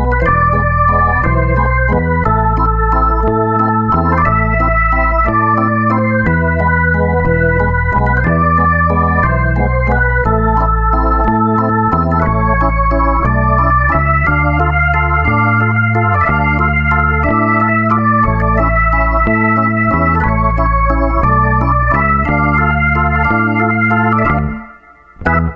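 Background music: a keyboard playing chords in an organ-like tone over a stepping bass line, with a steady beat. It drops out briefly near the end.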